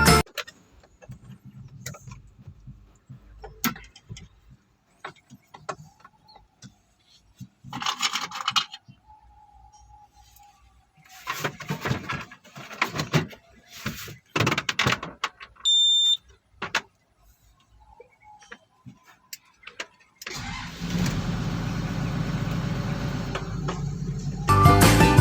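XCMG XE215C excavator: scattered clicks and knocks, a short electronic beep about 16 seconds in, then a steady engine sound that starts suddenly about 20 seconds in.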